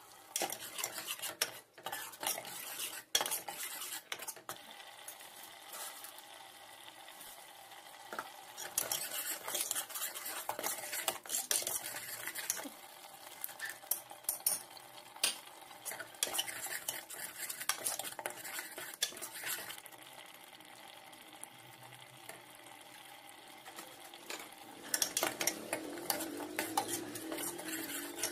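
A metal ladle stirring a thick masala in a pressure cooker, with irregular scrapes and clinks of metal against the pot.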